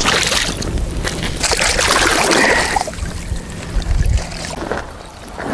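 Water splashing and trickling as a mesh keepnet is handled in shallow river water, louder at the start and again around two seconds in, with wind rumbling on the microphone.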